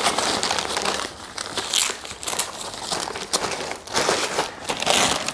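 Rustling and crinkling of a black fabric carrying bag and its packaging as hands rummage through green screen stand parts, with scattered small clicks.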